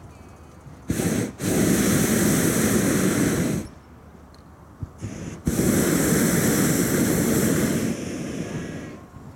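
Hot air balloon propane burner firing twice. Each time a brief blip comes first, then a steady rush of about two seconds. The second burn ends with a quieter hiss that fades out near the end.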